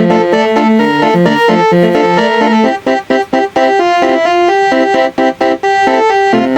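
Multi-trumpet telolet bus horn playing a MIDI melody with an organ-like tone: a quick run of short held notes, often two or three sounding together, broken by brief gaps.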